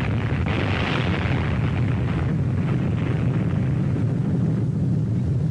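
Continuous low rumbling roar of an atomic bomb blast on an old film soundtrack. It holds steady, with a brighter hiss on top in the first second or so that then thins out.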